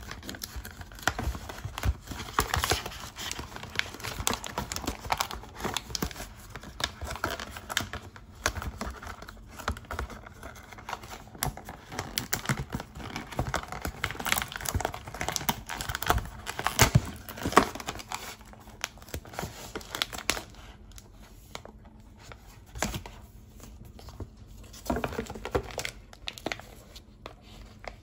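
A frozen pizza's cardboard box being torn open and handled, and its plastic wrap crinkling: irregular rustles and crackles that thin out near the end.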